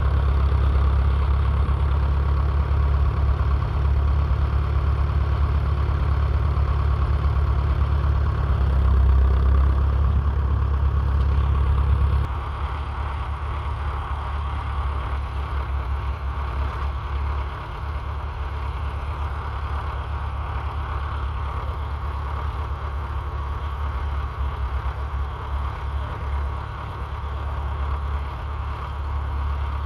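Massey Ferguson 35's 2.5-litre three-cylinder diesel engine running steadily while pulling a trailed plough. The sound drops noticeably about twelve seconds in and then carries on evenly.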